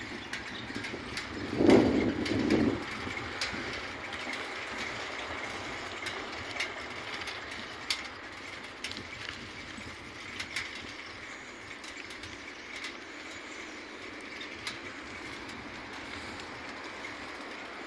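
Outdoor road ambience with a steady hiss, scattered light clicks and knocks, and a brief louder low rumble about two seconds in.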